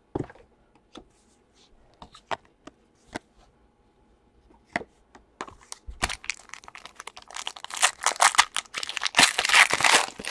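A few light clicks as trading cards are handled. Then, from about six seconds in, the foil wrapper of a Prizm basketball card pack crinkles and tears as it is ripped open, loudest near the end.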